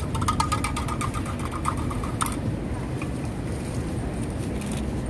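A steady low engine rumble. For the first two seconds a rapid, fast-rattling buzz sits over it and then stops abruptly.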